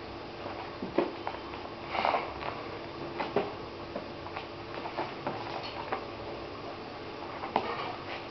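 Scattered light knocks, taps and scuffles of a kitten playing around a cloth-covered bin, over a faint steady hum.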